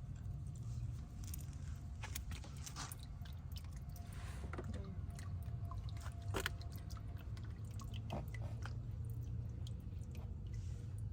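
Wet, squishy handling sounds with scattered small clicks and ticks, from working the oily oil filter and the oil around it, over a low steady rumble.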